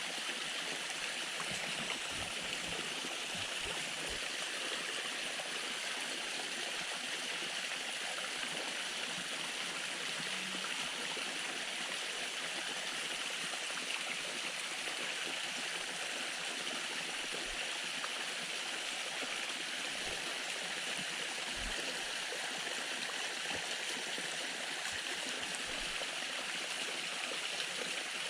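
Small spring-fed waterfall splashing steadily, an even rush of falling water.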